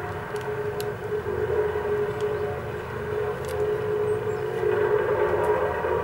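Vibratory plate compactor's small petrol engine running with a steady drone as it tamps a fresh asphalt patch, a little louder in the last couple of seconds.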